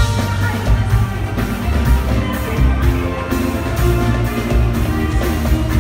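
Live band music with a strong bass and a steady drum beat, about two beats a second.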